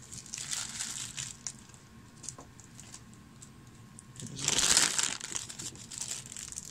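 Thin clear plastic bags of miniatures crinkling as hands dig through them, with a louder burst of crinkling about four and a half seconds in as a figure is pulled out of its bag.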